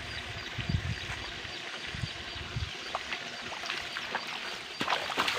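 Water sloshing and splashing in a flooded rice paddy, with a few sharper splashes near the end. The hand tractor's engine is not running: it has stalled after running into the bund.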